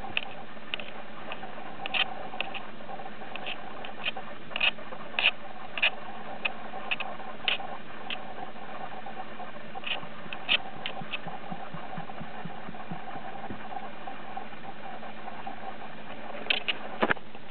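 Scattered soft clicks and rustles of a hand petting a cat's fur, irregular and clustered, with a small burst near the end, over a steady background hiss and hum.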